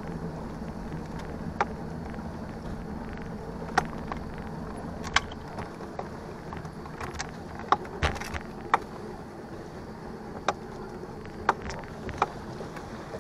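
Bass boat's motor running steadily at low speed, with about ten sharp clicks and taps at irregular intervals; the loudest, a knock, comes a little past the middle.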